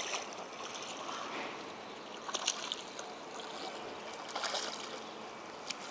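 A hooked tilapia splashing and thrashing at the pond surface as it is pulled toward the bank, with louder splashes about two and a half and four and a half seconds in.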